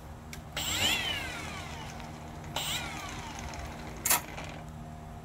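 Cordless drill motor run in two short bursts, each whining up in pitch quickly and then winding down slowly as it coasts. A sharp knock comes about four seconds in.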